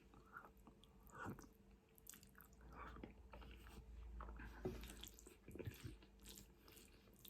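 Faint chewing and mouth sounds of a person eating, with soft smacks and small clicks spread through.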